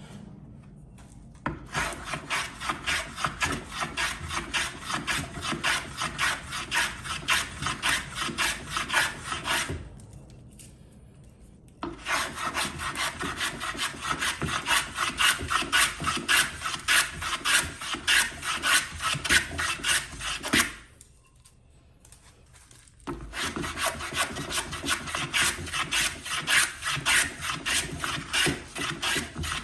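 A hand tool working a white pine batten with fast back-and-forth strokes, about three a second, in three long bouts with short pauses between them.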